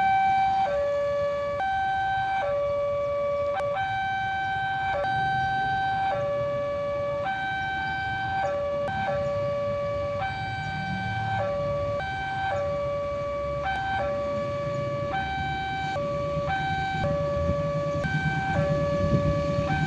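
Railway level-crossing warning siren sounding an electronic two-tone hi-lo, switching back and forth between a higher and a lower note every half second to a second. A faint low rumble runs underneath.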